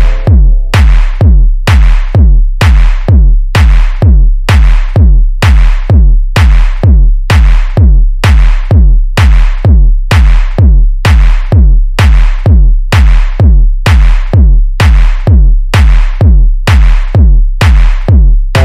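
Funky techno track in a stripped-back drum section: a drum-machine kick on every beat, about two a second, each stroke topped with a bright noisy hit, with no synth chords over it.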